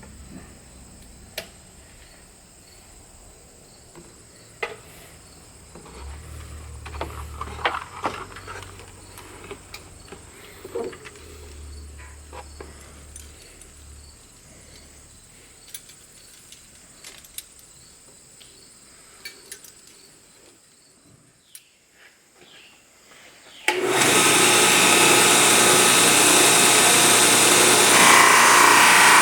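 Scattered faint clicks and taps, then near the end a power tool starts abruptly and runs loud and steady with a held whine.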